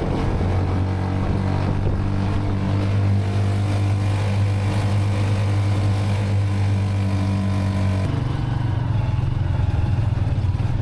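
Motor vehicle engine running steadily, heard while riding; its note changes about eight seconds in.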